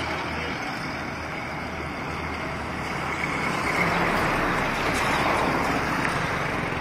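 Road vehicle noise, engine and tyres on the road, growing louder about halfway through and then easing off.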